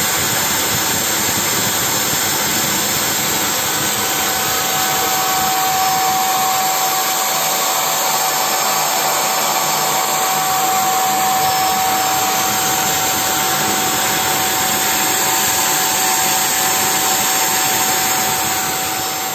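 Handheld Buildskill Pro electric paint sprayer's motor running steadily while it sprays a fine clear mist through the nozzle, a sign that the gun is being flushed clean. The sound is a loud, even blowing rush, and a steady whine joins it about four seconds in. Near the end the level begins to drop.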